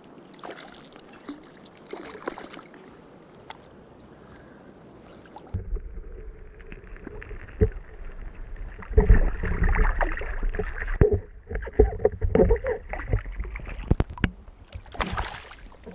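Water splashing and sloshing close to the microphone as a hooked rainbow trout thrashes while being brought in. It gets louder about halfway through, with irregular splashes and heavy low thumps.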